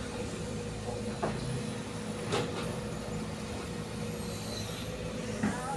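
Heavy diesel engine running steadily, with a few short knocks or clanks.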